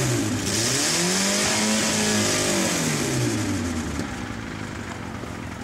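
A car engine revs up and then eases back down over about three seconds, with a hiss over it, then fades away.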